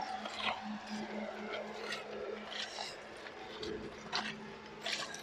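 Footsteps crunching on gravel, a few scattered steps, over a steady low hum.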